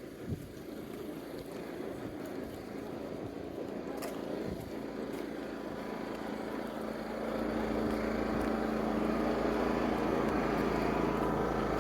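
An engine running, growing louder over the first seven seconds and then holding steady with a low hum.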